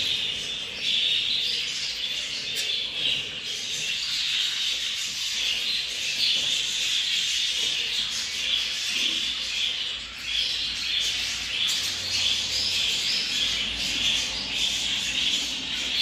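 Continuous budgerigar chatter and squawking, a dense high twittering without a break.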